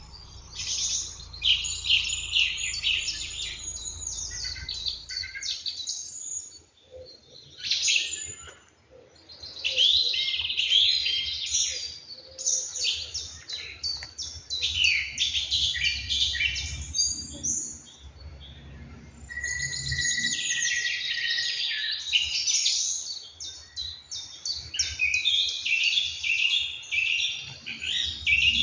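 Several songbirds singing at once in a morning chorus: overlapping chirps, trills and whistled phrases, thinning briefly a few seconds in and then resuming.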